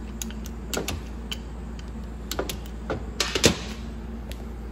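A series of sharp, irregularly spaced metallic clicks, the loudest about three and a half seconds in: a torque wrench being run over the E4OD/4R100 transmission pump bolts to recheck that each is at torque.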